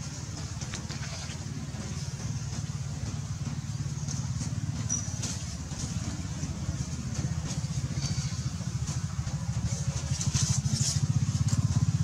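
A small engine running with a steady low hum, growing louder about ten seconds in.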